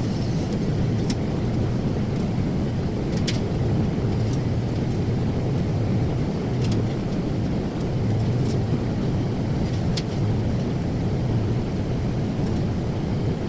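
TIG welding on stainless steel plate: a steady low hum and hiss from the arc and welding machine, with a few faint ticks.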